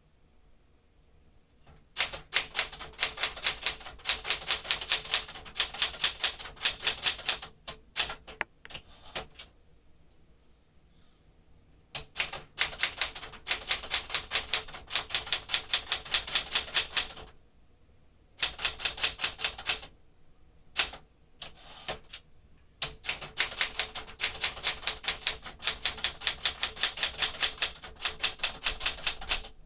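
Keys of a 1973 Smith-Corona Sterling manual typewriter struck in fast runs of sharp clicks, several lines with short pauses between them. The typing action is set to its high setting, which needs a firmer press.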